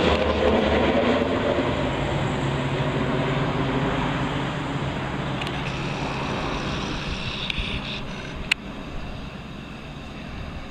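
CASA CN235's twin turboprop engines passing overhead and flying away, the engine noise fading steadily. A single sharp click about eight and a half seconds in.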